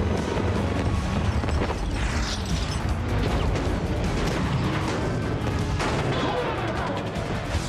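Action-film soundtrack mix: dramatic score music over dense mechanical noise, booms and crashes.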